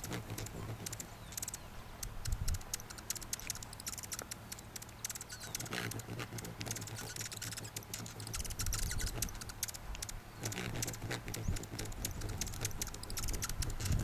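Male Oasis hummingbird in its shuttle display: singing and making buzzing sounds with its wings as it flies, heard as irregular runs of rapid, high, dry ticks over a low rumble.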